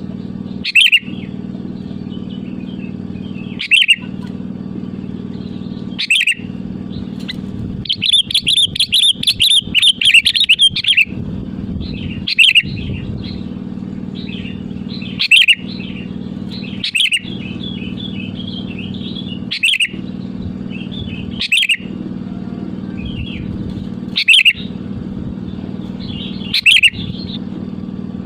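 Sooty-headed bulbul calling: short, loud phrases every two to three seconds, with a fast run of chattering notes about eight to eleven seconds in, over a steady low hum.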